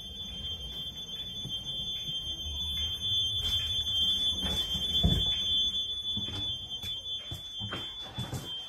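Steady high-pitched whine inside a passenger train coach, unbroken, over a low rumble, with scattered knocks and footfalls from about three seconds in as someone walks through the coach.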